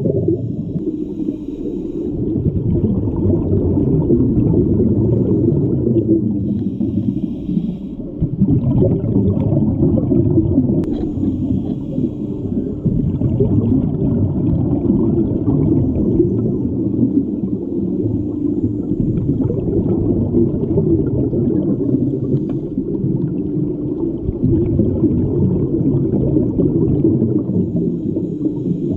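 Muffled underwater rumble of bubbles and moving water in an aquarium tank during a scuba dive, a steady low wash of noise throughout.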